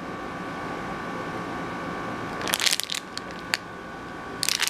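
Resealable plastic bait bag crinkling in the hands as it is turned over, in two short rustles about halfway through and near the end, with a sharp click between them. A steady hum runs underneath.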